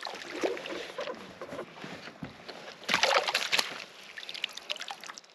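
Water splashing and sloshing beside a kayak as a hooked bass is fought and brought to the boat, with the loudest burst of splashing about three seconds in.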